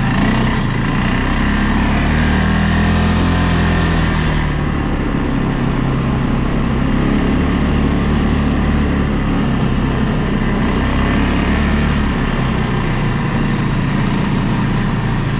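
ATV engine running as it is ridden, its pitch rising and falling gently with the throttle.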